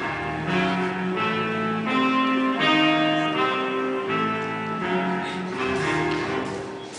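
Instrumental music with long held notes and chords that change every second or so.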